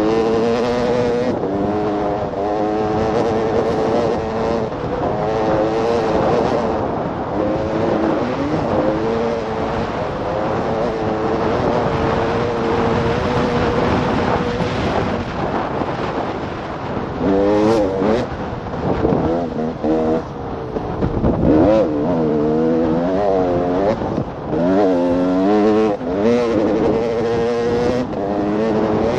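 A 2014 KTM 300 XC-W's single-cylinder two-stroke engine running hard under way, its pitch rising and falling with the throttle and gear changes, with several quick runs up and down in the second half.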